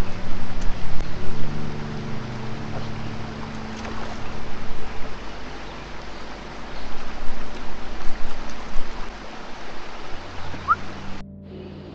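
A motor running, its pitch shifting now and then, under a loud, uneven rushing noise; the sound cuts off suddenly near the end, leaving a quieter hum.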